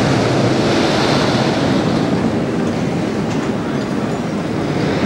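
Intamin Mega Coaster train on Expedition GeForce running along its steel track: a steady, loud rumble of wheels on rail.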